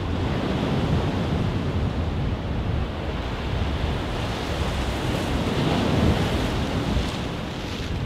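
Waves washing in a steady rush that swells a little past the middle, over a deep rumble of wind on the microphone.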